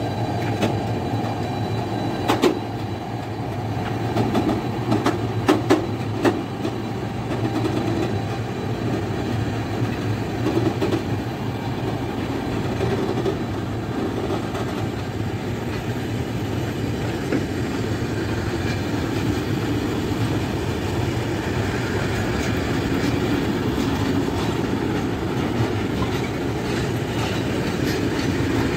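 A train rolling past steadily, its wheels clacking over the rail joints, with a cluster of sharp clicks a few seconds in.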